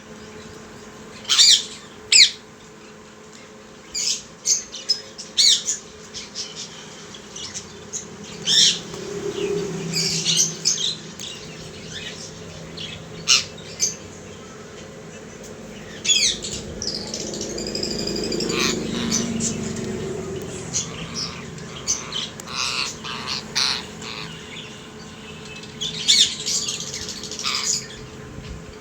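Indian ringneck parakeets squawking: short, shrill calls, some single and some in quick runs of two or three, with one longer call about halfway through.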